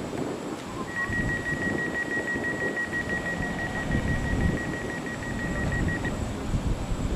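A single steady, high-pitched electronic beep tone sounds for about five seconds, starting about a second in, over a low rumble of railway station background noise.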